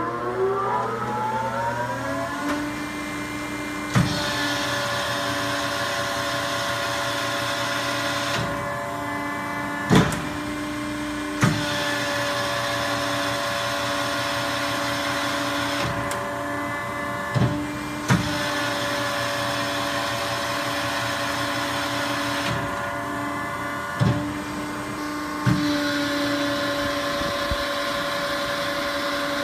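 Industrial plastics-processing machine running. A motor whines up in pitch over about two seconds to a steady high tone, then the machine works in repeating cycles of about seven seconds: a hiss comes and goes, with a sharp clack at each change.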